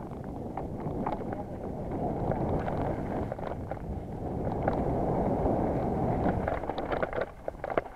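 Wind rushing over a helmet camera's microphone during a mountain-bike descent, with quick clicks and rattles from the bike and tyres over the rough dirt trail. The rush grows louder toward the middle and falls away near the end.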